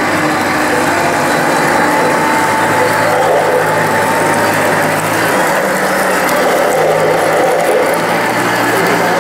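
1:16 scale radio-controlled model tank driving over sand: a steady engine-like drone with a light mechanical whine from its drive. The deepest part of the engine note drops away about five seconds in.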